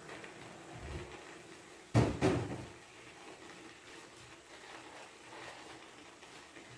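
Two sharp knocks in quick succession about two seconds in, like a cupboard door or bottle being handled, over a faint steady hiss.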